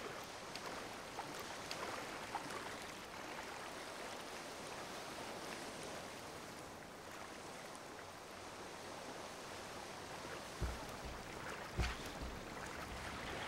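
Calm sea water gently lapping and washing, a soft even hiss of small waves. A few short low thumps come in near the end.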